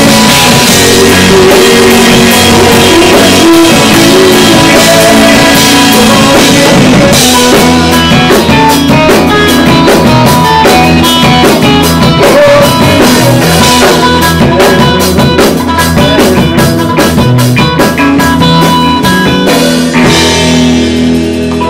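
A live rock band playing loud, with drum kit, electric guitars and bass guitar. About seven seconds in, the drums settle into a steady run of evenly spaced hits, and the cymbals drop out near the end as the song winds down.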